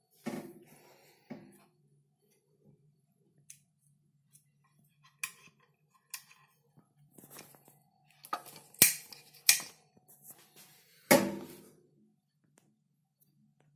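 Handling noises from a metal-cased РЗБА-04-04М radiometer: scattered light clicks and knocks of cable plugs, a toggle switch and the case, with three louder knocks in the second half. A faint low hum sits underneath.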